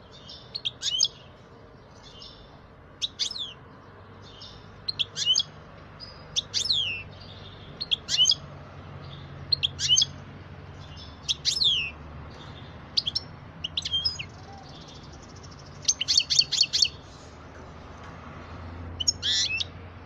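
A songbird chirping: short, sharp notes that sweep down in pitch, one every second or two, with two quick runs of several notes near the end, over a faint low hum.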